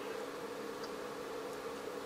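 Steady faint hum with two held buzzing tones and a light hiss, unchanging throughout: background room tone.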